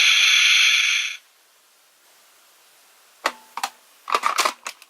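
Kamen Rider Ex-Aid Proto Mighty Action X Gashat toy: a steady electronic sound effect from its small speaker cuts off about a second in, and after a short quiet a handful of sharp clicks and brief blips follow near the end.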